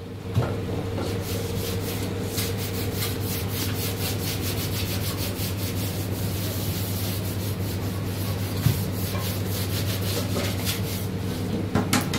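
Quick back-and-forth sanding strokes on a motorcycle fuel tank, about three or four a second, over a steady low machine hum.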